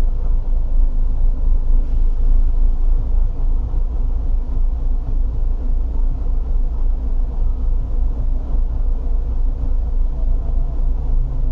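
Low, steady rumble of idling vehicle engines, picked up by a dashcam inside a car stopped in traffic between large tour buses.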